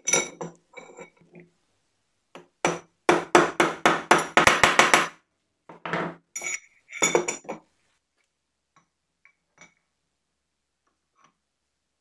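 Sharp metal-on-metal knocks and clinks from the steel T-handle and screw of a bench vise being fitted together, ringing briefly. There are a few clicks at first, then a quick run of about a dozen strikes, about five a second, a few more knocks, and then only light ticks near the end.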